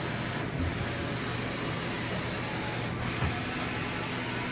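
Steady running hum and hiss of a powered-up Johnford VMC1300HD vertical machining center, with a thin high whine over a low hum and no knocks or clatter.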